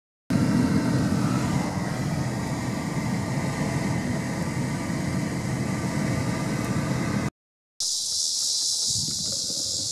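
A steady low rumble that stops abruptly about seven seconds in, followed after a short gap by a steady high-pitched drone of insects.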